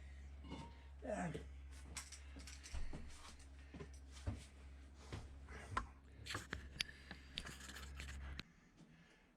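Irregular metallic clicks and clinks of hand tools and small bolts being undone and handled on a VW T3 diesel engine, with a short falling squeak about a second in. A steady low hum underneath cuts off about a second before the end.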